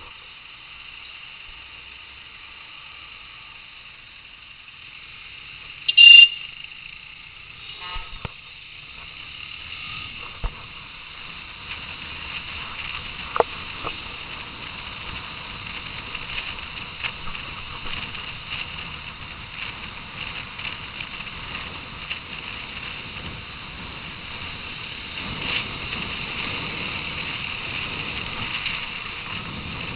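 Steady wind and traffic noise from a moving motorcycle, picked up by a small camera's microphone and growing louder as the ride goes on. About six seconds in there is a sudden loud burst with a shrill tone, followed by a few light knocks.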